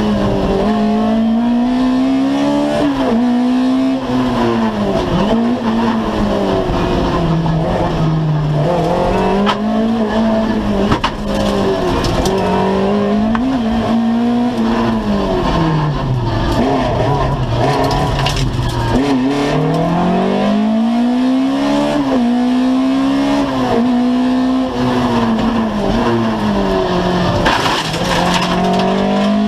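Two-wheel-drive rally car's engine heard from inside the stripped cockpit, driven hard. The pitch repeatedly climbs, then drops sharply with gear changes and lifts off the throttle before climbing again, over steady road and drivetrain noise.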